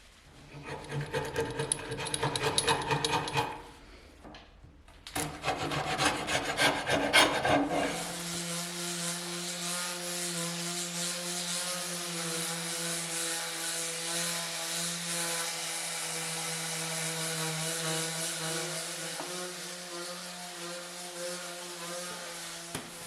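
An electric power tool working wood with a rasping, abrasive sound: two short runs, then a long steady run with a constant motor hum that stops just before the end.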